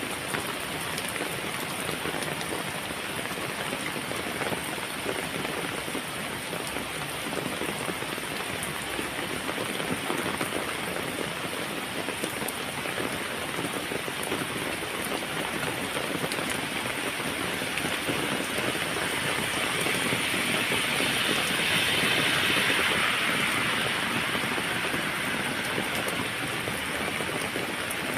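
Heavy rain falling steadily, a dense even hiss. About two-thirds of the way through it swells louder for several seconds, then settles back.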